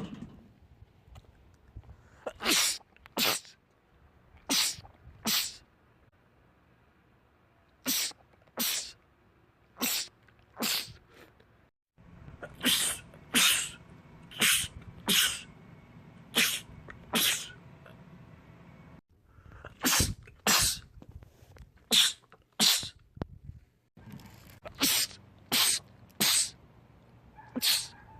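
Men sneezing in rapid fits: sharp sneezes, often in pairs or quick runs of three or four, about a second apart. The background changes abruptly a few times as different sneezers follow one another.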